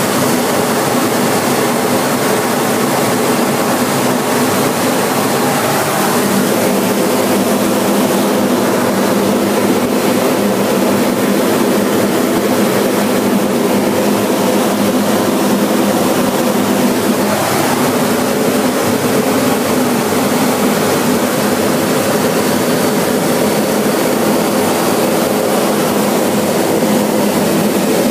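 Steady jet engine and airflow noise heard inside the cockpit of a T-45 Goshawk trainer in flight, its single Adour turbofan giving a constant rushing noise with a hum of several steady tones. The hum changes note slightly about six seconds in and again near seventeen seconds.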